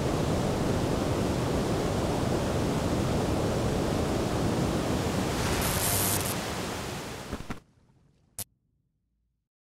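Waterfall's steady rush of falling water, with a brief brighter hiss about six seconds in. It cuts off suddenly near the end, followed by a single short click and silence.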